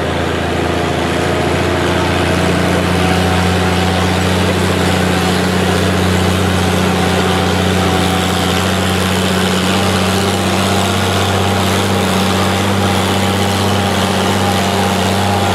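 Oliver 88 tractor's six-cylinder engine running hard under load as it drags a weight-transfer sled down a pulling track. The note is steady and rises slightly about two seconds in.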